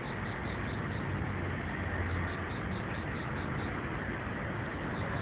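Steady outdoor background noise: an even hiss over a low hum, with a faint high pulsing about five times a second.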